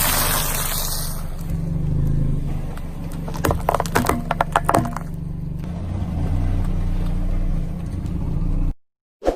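Car engine running steadily while its tyres crush something brittle: a quick run of sharp cracks and crunches about three and a half to five seconds in, after a loud rush of noise at the very start. The sound cuts off abruptly near the end.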